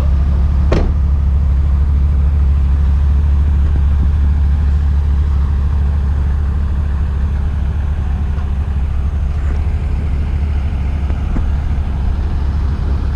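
Vehicle engine idling with a steady low hum. A sharp knock a little under a second in, like a door being shut.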